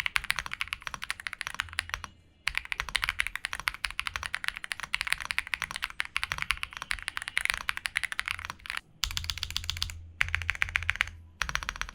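Typing on an RK R65 65% mechanical keyboard, with factory-lubed stock RK switches, a gasket-mounted polycarbonate plate and MDA-profile PBT keycaps. A fast, dense run of keystrokes stops briefly a few times.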